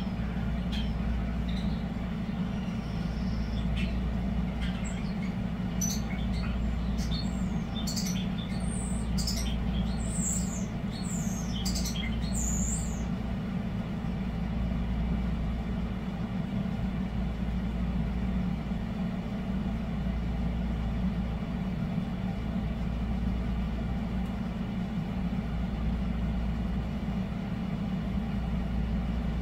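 Air conditioner running with a steady low hum. Over it, starlings sing high chirps and sweeping whistles, busiest just before they stop a little before halfway.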